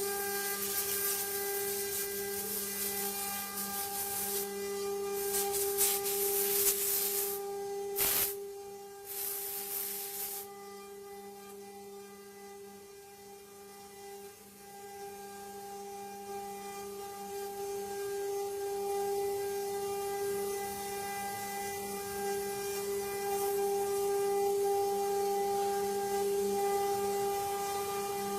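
CNC wood-carving router running with a steady spindle hum. For about the first ten seconds, loud rasping noise from the bit cutting wood lies over the hum. After that the rasping falls away and the hum goes on.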